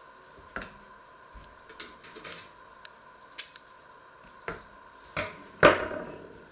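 Scattered light knocks and taps of bread slices and a knife being handled on a wooden cutting board, with a sharp click about three and a half seconds in and the heaviest knock near the end.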